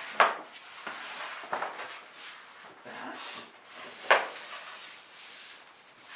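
Sheet paper rustling as a strip is folded in half and the fold pressed down, with two sharp taps, one right at the start and one about four seconds in.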